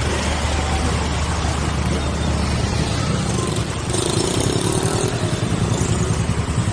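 Small motorcycle and scooter engines running close by: a steady low drone with a quick throbbing pulse that grows stronger near the end, over the general din of traffic.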